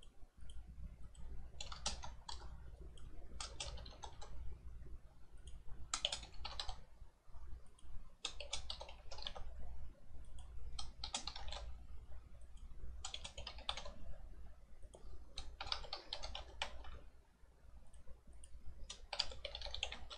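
Typing on a computer keyboard in about eight short bursts of keystrokes, a second or two apart, over a low steady hum.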